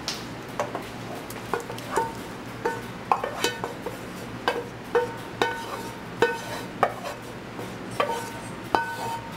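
A frying pan and wooden spatula knocking and scraping against a metal cooking pot while sauce is scraped out of the pan. This gives irregular clinks, each ringing briefly.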